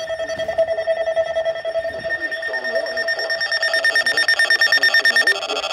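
Weather alert radio sounding its alarm for a severe thunderstorm warning: a loud, rapidly pulsing electronic tone. The tone changes about five seconds in.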